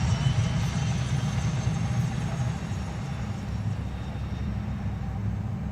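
Low, steady rumbling drone played over the show's outdoor loudspeakers, easing off slightly toward the end.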